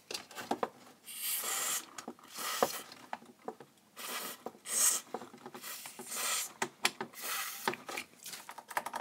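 Aerosol contact-cleaner spray can hissing in a series of short bursts as it is sprayed into an amplifier's switch openings, with small clicks of the nozzle and switches between the bursts.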